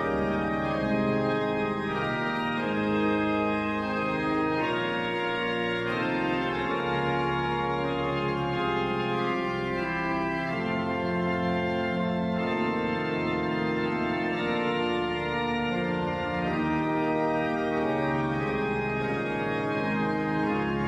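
Pipe organ playing full sustained chords that change every second or two over held bass notes: the 1874 L. van Dam en Zonen organ of the church at Oudega.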